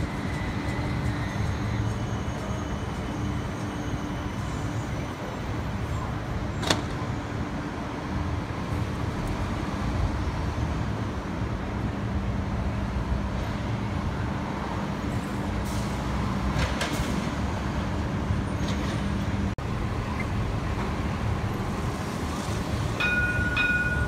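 Cincinnati Bell Connector streetcar, a CAF Urbos 3, passing slowly along a city street with a steady low electric hum over traffic noise, and a sharp click about a quarter of the way in. The hum stops about four-fifths of the way through, and short high beeps sound near the end.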